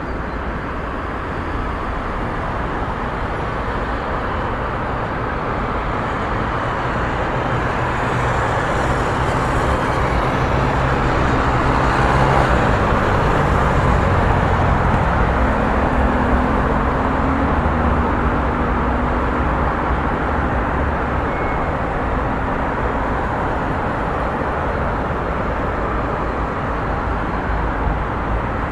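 Busy street traffic: a steady wash of road noise from passing cars, swelling as a vehicle goes by about halfway through and then easing off.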